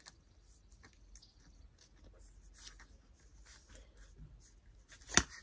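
Faint rustles and light ticks of a black plastic air-layering pod being handled and fitted around a branch. About five seconds in there is one sharp plastic click as the pod's two halves come together.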